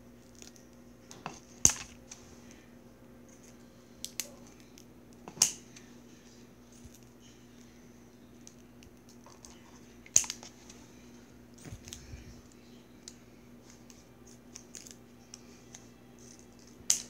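Scissors cutting out small shapes: a few sharp snips spread several seconds apart, with light clicks and rustles between, over a faint steady low hum.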